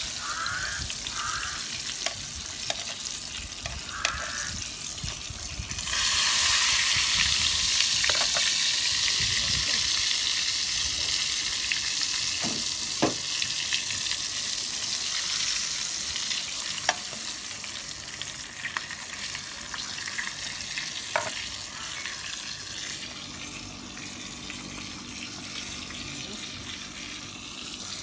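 Pork frying in bubbling fat in an electric skillet, a steady sizzle with the occasional click of a spatula against the pan as the pieces are turned. The sizzle jumps much louder about six seconds in, then slowly dies down.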